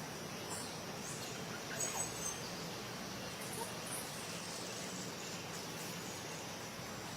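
Faint outdoor ambience: a steady hiss of background noise with a few faint, high bird chirps about two seconds in.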